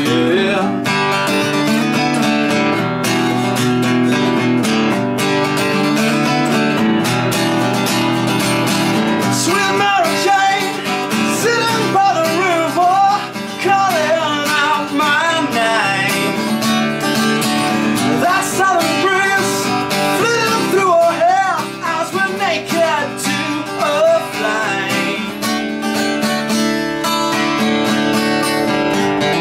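Acoustic guitar played in a steady, strummed and picked accompaniment. A man's voice sings a melody over it from about ten seconds in until around twenty-five seconds.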